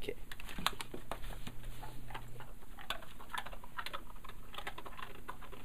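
Golden retriever crunching a dry dog treat: a quick, irregular run of crisp crunches and clicks.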